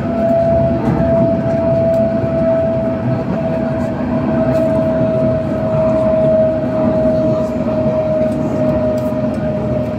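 Alstom Citadis 302 tram running on its rails, a steady rumble under a single whine from its electric drive that falls slowly in pitch as the tram eases off.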